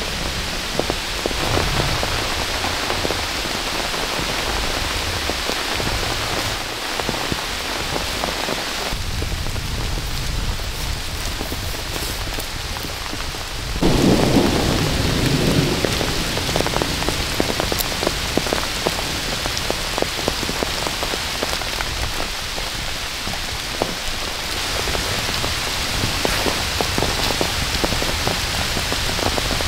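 Heavy rain falling steadily, with many small drops pattering on a surface, during a thunderstorm. About halfway through, a louder low rumble of thunder rises and lasts a couple of seconds.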